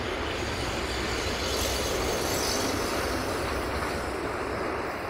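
Diesel-hauled freight train passing close by, an 060-DA diesel-electric locomotive and its wagons: a steady rumble of wheels on rail with a high squeal of wheels on the curve that swells about two seconds in.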